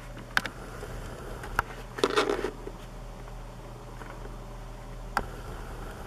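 Three sharp taps, the first within half a second, the next about a second later, the last near the end, and a scratchy rustle of about half a second roughly two seconds in, the loudest sound. A steady low electrical hum runs underneath.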